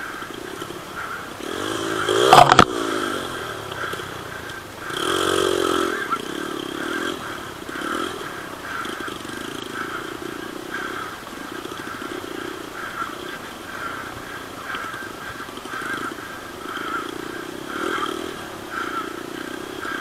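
Dirt bike engines revving as motorcycles go past. The first passes about two seconds in with its pitch falling and a sharp knock, the loudest moment. A second revs up about five seconds in, and fainter engine swells follow.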